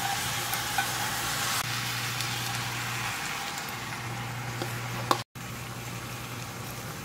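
Fish cake and onions sizzling in a frying pan as rice cake slices, beaten egg and mushrooms are tipped in; the sizzle turns softer about a second and a half in. A low hum cuts out and back in underneath, and the sound breaks off for an instant about five seconds in.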